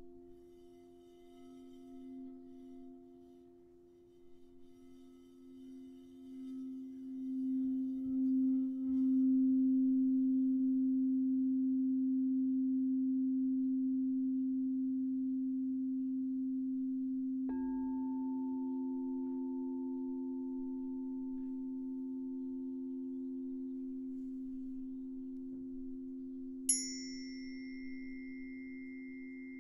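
Crystal singing bowl played by rubbing its rim with a wrapped mallet: a low hum swells with a pulsing wobble to a full, loud ring, then holds and slowly fades. About halfway a light tap adds a higher ringing tone. Near the end a tuning fork is struck with a sharp ping and rings a high steady tone.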